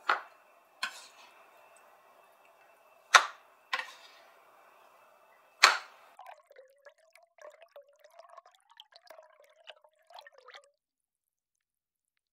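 Five sharp knocks of a kitchen knife against wooden bowls as cubes of tofu are slid off the blade into them. They are followed by a softer stretch of light clicks and a trickle of liquid being poured into a bowl, its pitch rising and then falling, which stops abruptly near the end.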